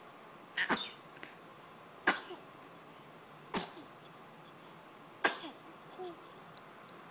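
Four small, sharp sneezes from a three-month-old, evenly spaced about a second and a half apart, followed by a faint little sound with a short falling tone.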